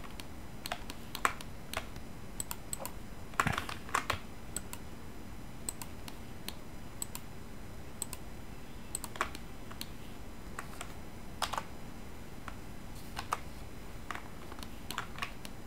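Computer keyboard and mouse clicks as Blender hotkeys and mouse moves are worked, irregularly spaced and sometimes in quick pairs, over a faint steady background hiss.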